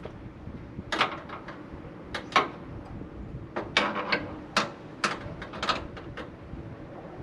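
Irregular sharp clicks and knocks from hands handling parts and tools, about a dozen, with the loudest knock about two and a half seconds in.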